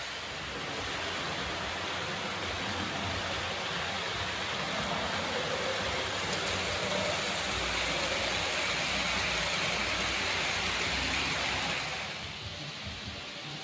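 H0-scale model trains running on the layout's track: a steady rolling rush of small metal wheels on rails, a little louder in the middle and dropping off near the end.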